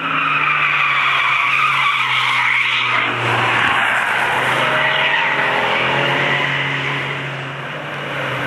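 Cars passing close one after another through a tight corner, engines running loud under load, with tyre squeal. The sound dips briefly near the end before the next car comes through.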